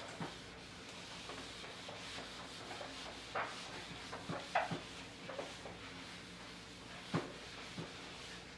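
Handheld eraser wiping a whiteboard: a faint rubbing, with a few short light knocks around the middle and near the end.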